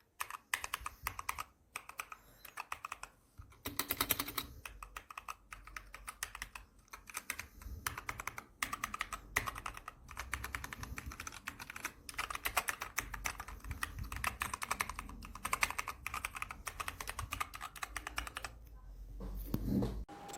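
Typing on the Dierya T68SE 60% mechanical keyboard with red linear switches: a rapid, continuous clatter of keystrokes with a few short pauses.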